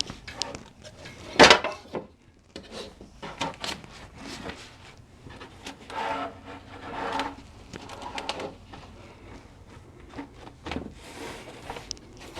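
Fabric and stabilizer being worked into an embroidery hoop by hand: irregular rubbing and handling noises with scattered knocks. The loudest is a sharp knock about a second and a half in.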